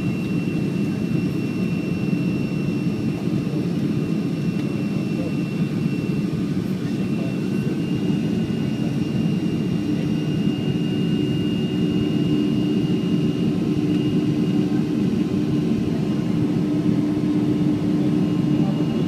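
Cabin sound of a Boeing 737-500 climbing out after takeoff, heard beside the wing: steady engine noise from its CFM56-3 turbofans with a thin high whine held over it. A lower hum strengthens about halfway through.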